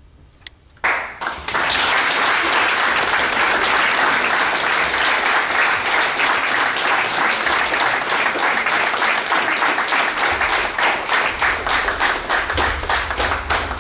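Audience applause: it breaks out about a second in after a brief hush, holds dense and steady, and thins into more separate claps near the end.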